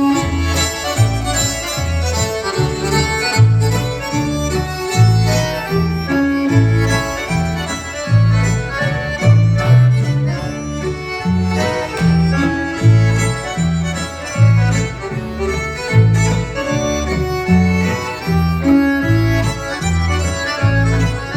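Norwegian old-time dance band playing a reinlender, a schottische tune, with a melody over a steady, even bass beat.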